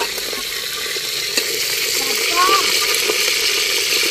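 Steady sizzling from a metal cooking pot on an open wood fire, with a few light clicks of a ladle.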